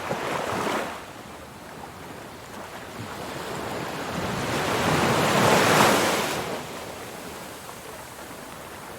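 Open-ocean waves surging and washing, with wind on the microphone. One larger wave builds to a peak about five to six seconds in, then falls away.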